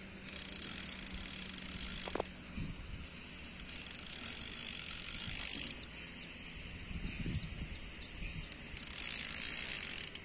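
Fishing reel being cranked in three spells of whirring, winding in line with a carp hooked on the end.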